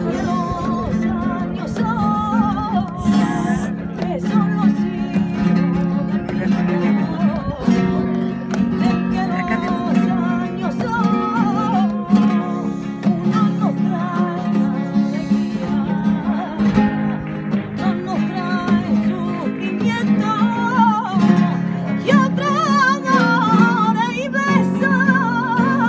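Two Spanish guitars strummed together while a woman sings over them, her voice wavering in ornamented runs, in a flamenco-like Andalusian style.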